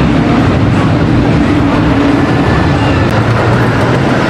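Roller coaster train rumbling along its track, a loud, steady rumble throughout.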